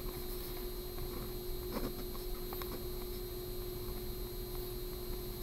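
Steady low electrical hum, with a few faint taps and rustles of a pen on a paper worksheet.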